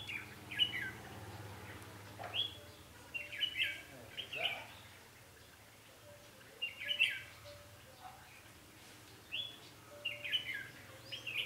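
Red-whiskered bulbul singing short, bright, chirpy phrases in bursts every one to three seconds: the combative song used to challenge and lure rival bulbuls.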